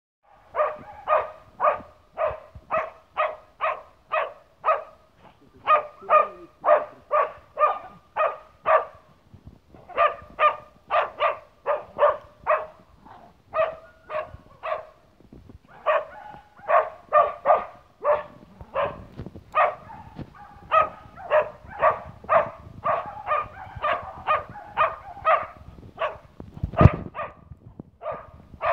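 Slovak hound (Tatranský durič) bay-barking at a wild boar, a steady run of barks about two a second with short breaks, holding the boar at bay. A single loud thump sounds near the end.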